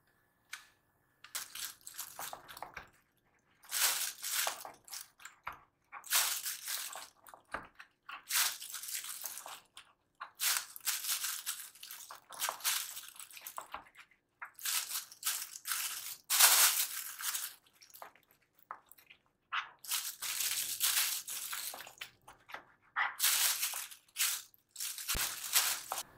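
Kitchen food-preparation sounds: a series of short, noisy crunching bursts, each one to two seconds long, with brief pauses and a few sharp clicks between them.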